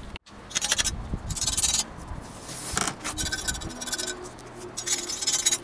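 A pointed steel tool, like a scriber, scratching along sheet metal to mark it, in about five short strokes.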